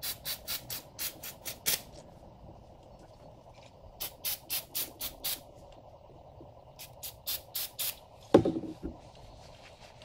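Aerosol brake parts cleaner sprayed onto a motorcycle's front brake caliper in quick short bursts, about four a second, in three runs: at the start, around four seconds in and around seven seconds in. A single loud knock follows about eight seconds in.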